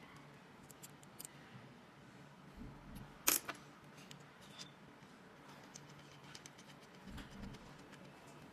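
Faint scattered clicks and taps of small metal parts being handled, a car lock cylinder and a pin-type remover tool, with one sharper click about three seconds in.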